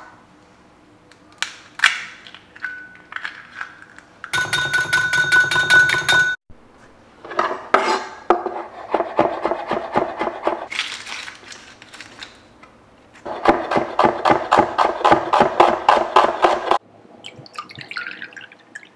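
Food-prep sounds: a ceramic bowl clinks on a wooden surface, then a santoku knife chops garlic on a wooden cutting board in long runs of quick, rapid strokes, and near the end liquid pours from a bottle into a ceramic bowl.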